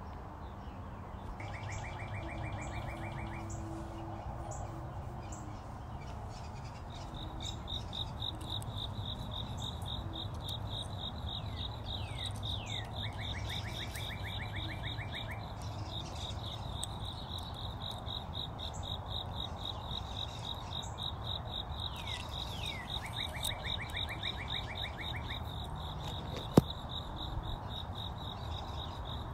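Outdoor garden ambience: a cricket chirping steadily from about a quarter of the way in, and a small bird calling three times, each a couple of falling notes followed by a quick rattle of notes, over a low steady rumble. A single sharp tap near the end.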